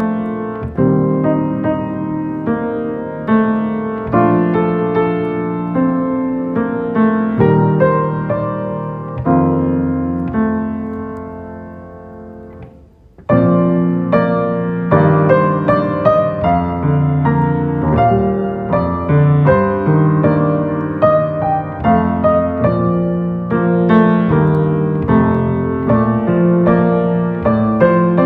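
Solo piano music, slow chords and melody. About halfway through, one piece fades away and another begins.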